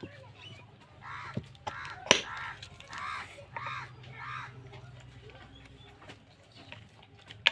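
A bird, likely a crow, cawing in a series of about six harsh calls, with two sharp knocks near the start of the series.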